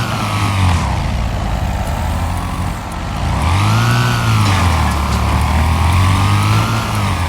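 Riding lawnmower engine running, its speed falling in the first second, picking up again about three and a half seconds in, then holding fairly steady.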